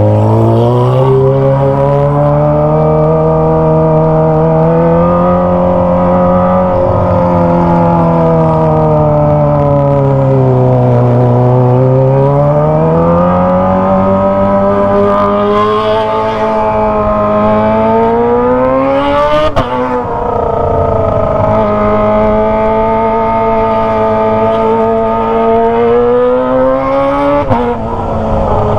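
Kawasaki ZX25R's inline-four engine through a Toce aftermarket exhaust, revving up and down under riding, its pitch climbing and falling. In the second half it climbs twice and breaks off sharply each time, the pitch dropping before rising again, as with upshifts.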